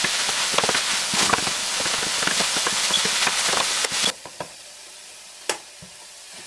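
Sausage sizzling and crackling as it browns in hot olive oil in a steel pot. It cuts off suddenly about four seconds in, leaving a quiet room with one knock a second and a half later.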